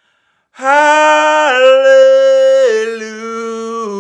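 A solo voice singing a worship song: after a brief pause, one long drawn-out sung syllable held across several steady notes that step down in pitch, with no accompaniment.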